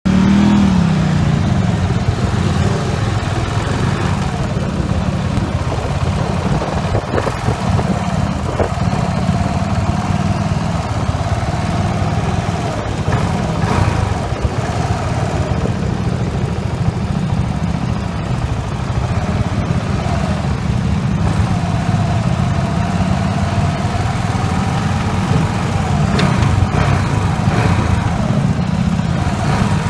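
KTM 690 Duke R's single-cylinder engine running steadily at low speed, heard from the bike as it rides slowly through a course of cones.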